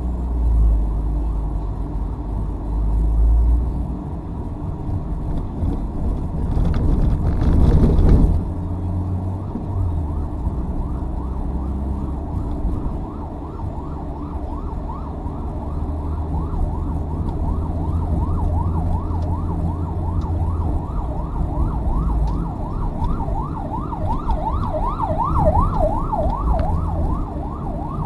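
Ambulance siren in a fast yelp, its pitch sweeping up and down about three to four times a second. It comes in faintly about halfway through and grows louder toward the end, over the steady engine and tyre noise of a moving car heard from inside the car. A louder rushing noise swells and fades about a quarter of the way in.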